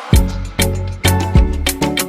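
Background music with a steady beat: heavy bass and drum hits about twice a second.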